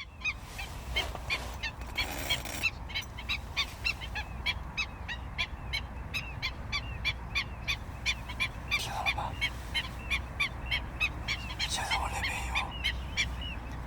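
A flock of wetland birds calling: many short, arched calls overlapping, several a second, over a low steady rumble.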